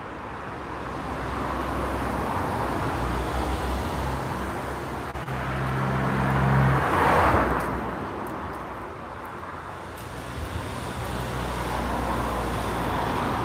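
Road traffic passing: a car's engine and tyre noise swells to its loudest about seven seconds in and fades, then more traffic builds again near the end.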